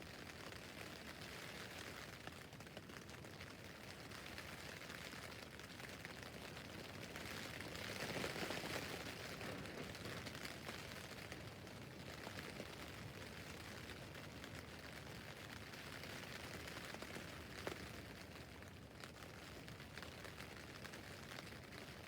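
Rain falling on a tent's fabric roof, a steady hiss of drops with fine ticks, swelling for a moment about eight seconds in, with one sharper drop hitting near the end.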